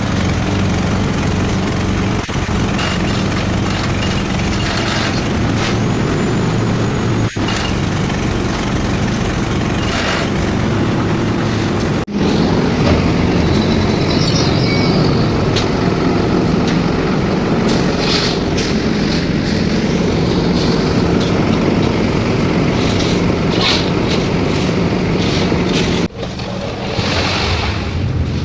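Engine of concrete-casting site machinery running steadily with a low, even hum and a noisy clatter over it, broken by three brief sharp dropouts.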